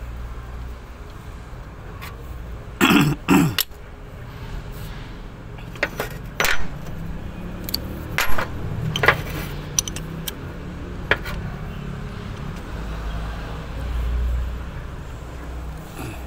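Scattered metallic clinks and knocks of hand tools on the fittings of a HOWO truck's power steering pump, over a low steady rumble that swells near the end. There is a loud short sound about three seconds in.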